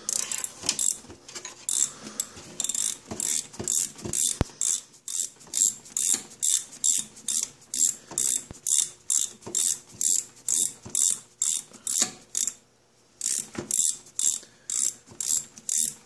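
Hand ratchet with a 5/8-inch spark plug socket clicking in a steady rhythm, about two clicks a second, as the spark plug is backed out of a 49cc scooter engine. The clicking stops briefly about twelve seconds in, then resumes.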